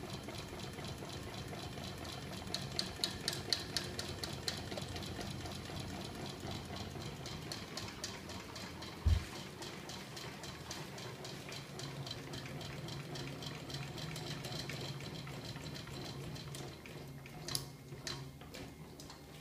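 Homemade magnet crankshaft machine driven by a small 24 V electric motor running steadily, its spinning shaft and flywheels making a fast regular clicking over a steady hum. A single dull thump about nine seconds in, and two sharp clicks near the end.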